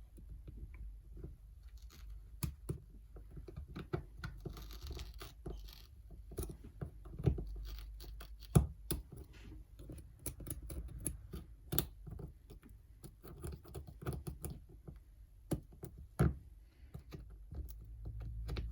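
A small tool scraping and clicking irregularly against an iPad's LCD edge, digging out wax glue that holds the screen in its corners: many short sharp ticks and scratches at an uneven pace.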